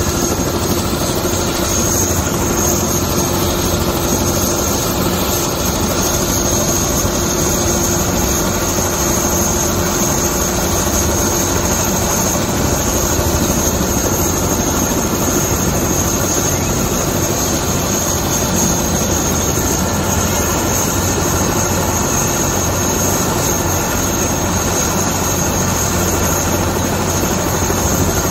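Light single-engine turbine helicopter running while parked on the ground, rotor turning. A steady high turbine whine sits over the even rush of the rotor and engine, at an unchanging level.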